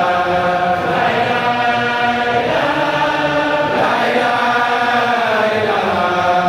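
Congregation of men chanting together in unison in a mosque, a religious chant of long held notes that shift pitch every second or two.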